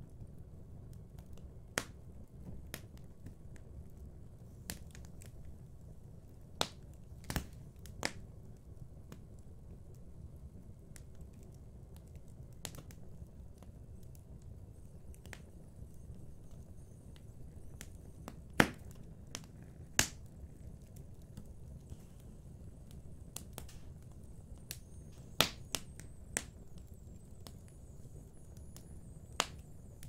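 Fireplace fire crackling: a low steady rumble with many faint irregular ticks and about nine sharp, loud pops scattered a second to several seconds apart.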